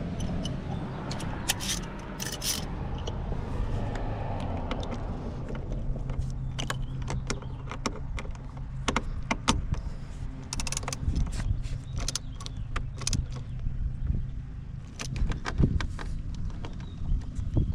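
Scattered light clicks and knocks of hand tools and small parts being handled while the steering wheel's side bolts and trim covers are fitted, over a steady low hum.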